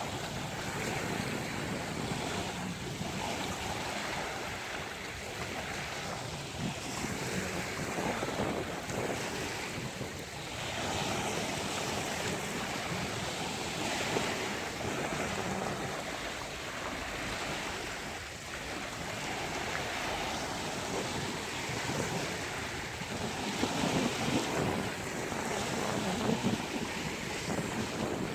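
Sea surf on a beach: waves breaking and washing in, a continuous rushing noise that swells and eases every few seconds, with wind on the microphone.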